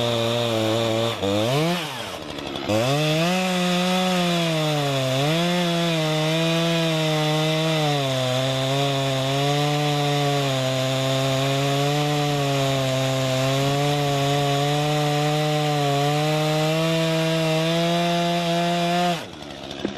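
Stihl MS 251 C-BE chainsaw's 45.4 cc two-stroke engine running at high revs while cutting wood, its pitch sagging and recovering under load. The engine speed drops sharply for a moment about two seconds in. The sound falls away abruptly just before the end.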